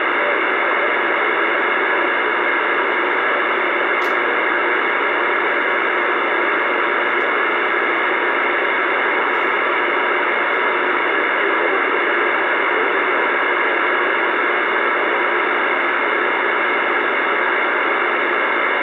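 Steady static hiss from a Uniden Bearcat CB radio receiving channel 28 on AM, with no voice on the channel.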